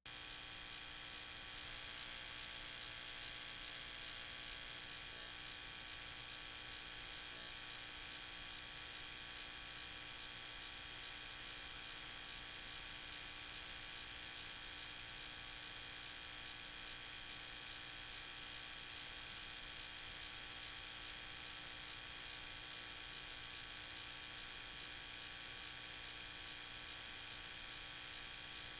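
Steady electrical hum and buzz with many evenly spaced overtones, starting abruptly and holding unchanged throughout.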